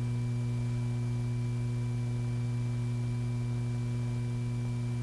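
Steady low electrical hum with faint hiss, the background noise of an old film soundtrack; no mechanical sound from the gun model.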